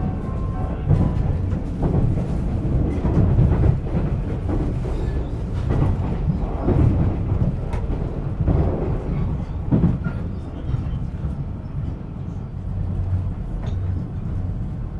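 Running noise inside a moving Twilight Express 24-series dining car: a steady low rumble from the wheels and bogies, with irregular sharp knocks and clicks every second or two.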